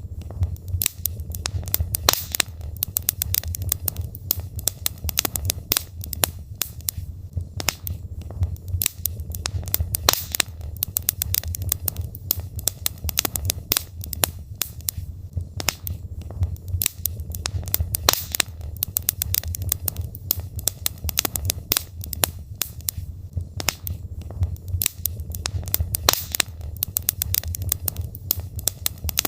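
Burning logs in a fireplace crackling, with many irregular sharp snaps and pops over a steady low sound of the fire.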